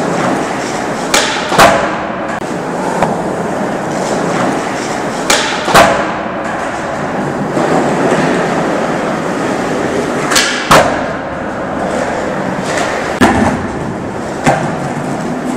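Skateboard wheels rolling over smooth concrete, broken by sharp wooden clacks of the board: three pairs about half a second apart, the tail popping and the board landing on flat-ground tricks, then two single clacks near the end.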